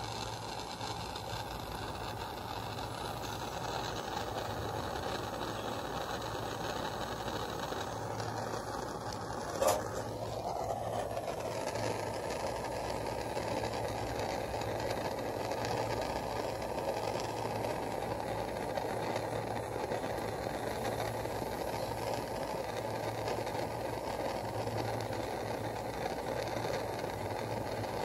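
Gas torch flame burning steadily with a continuous hissing rumble while it heats potassium metal in a steel spoon. A single sharp click about ten seconds in.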